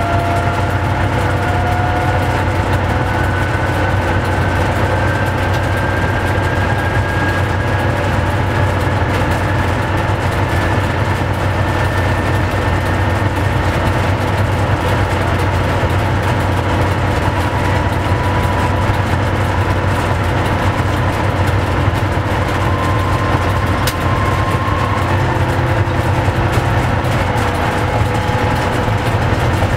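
ER2 electric multiple unit running, heard from the driver's cab: a steady low hum with faint whines that slowly rise in pitch as the train picks up speed. One brief click near the end.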